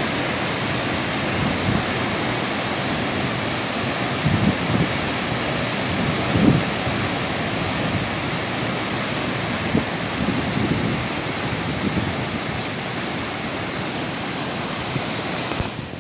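Steady rushing of a tall waterfall plunging into a pool, with a few low gusts of wind on the microphone.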